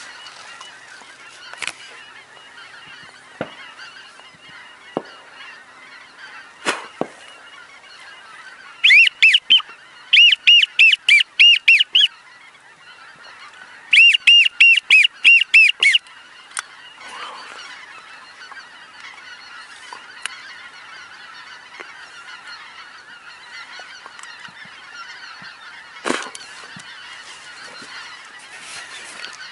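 Geese honking: two bouts of loud, rapid honks a few seconds apart, over a steady background of distant bird calls.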